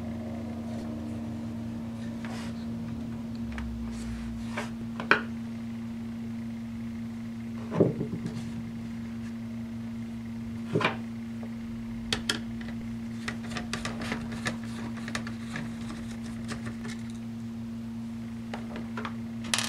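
Scattered small clicks and taps of plastic and metal as laptop parts and a Phillips screwdriver are handled inside the opened case, the loudest about five seconds in and a quick run of lighter ones in the second half. A steady low hum runs underneath.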